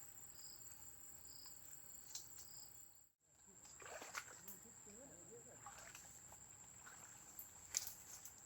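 Faint insects chirping, with a steady high thin tone under them. The sound drops out briefly about three seconds in, and there are a few faint knocks near the end.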